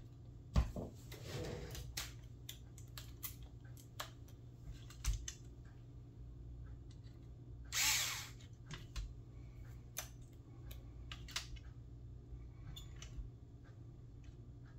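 Metabo cordless screwdriver running briefly about halfway through as it drives a screw into the fuser's plastic exit guide. Light clicks and taps of plastic parts being handled come before and after it.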